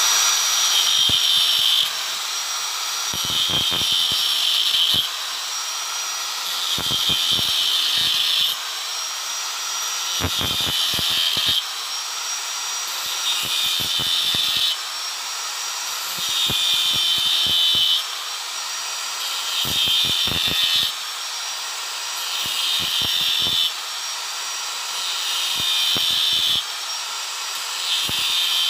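Small electric angle grinder running continuously while its disc carves into a teak walking stick. The sound swells and drops back in repeated passes, about one every three seconds.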